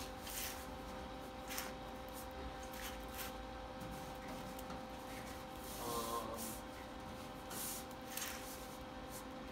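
Hands rubbing and pressing along the sheet-metal edge of a truck roll pan and bed rail: a few soft, brief scuffs over a steady faint hum, with a short pitched squeak-like sound about six seconds in.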